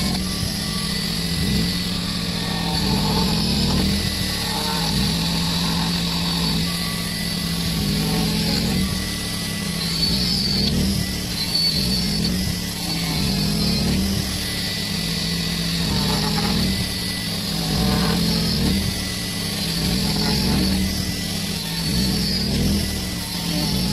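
Makita variable-speed angle grinder fitted with a Manpa hole cutter attachment, running steadily while cutting scale shapes into a wooden log. Its pitch dips briefly about every two seconds as the cutter bites into the wood.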